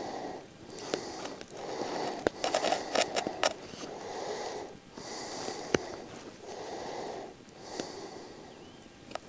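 Knife blade shaving a groove into a wooden cross piece: repeated scraping strokes, roughly one a second, with small clicks as the blade bites and leaves the wood.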